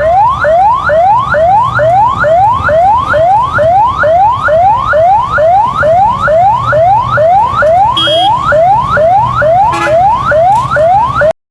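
Electronic siren sounding in fast, repeated rising sweeps, about two a second, over a low hum. It cuts off abruptly near the end.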